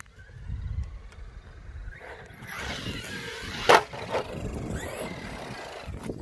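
Electric radio-controlled monster truck driving on tarmac: a rush of motor and tyre noise builds from about two seconds in, with one loud sharp clack just before four seconds and a smaller one soon after.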